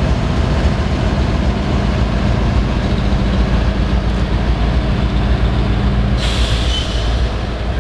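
Norfolk Southern ES44DC diesel locomotive's engine running with a deep steady rumble as it pulls slowly past. About six seconds in, a loud hiss of air joins it.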